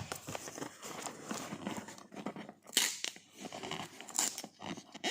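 Gift wrapping paper being crinkled and torn by hand: irregular rustling, with two sharper rips about three seconds in and just after four.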